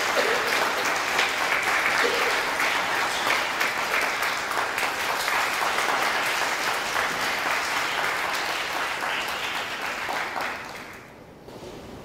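Audience applauding steadily, a dense patter of many hands clapping, which dies away fairly quickly near the end.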